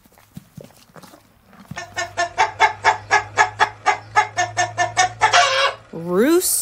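Farm animal calling: a fast run of short pitched calls, about four or five a second, then one rising call near the end.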